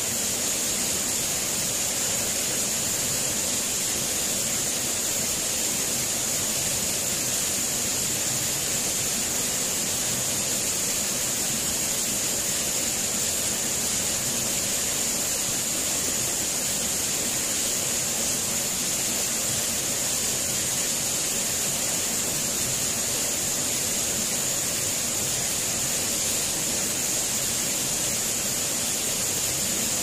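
Steady, unbroken rush of a waterfall, with a constant high hiss on top.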